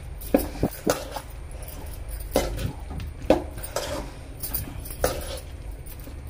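A metal slotted spoon scrapes and knocks against an aluminium kadai while stirring quail pieces, potato chunks and thick masala, giving irregular sharp clinks and scrapes a few times a second.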